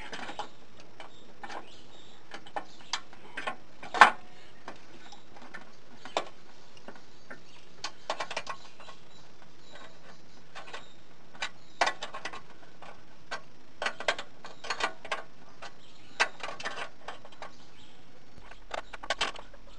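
Scattered clicks and metal clinks of vise grips and a wrench working to tighten a fitting, with one loud knock about four seconds in and bunches of clicks later on.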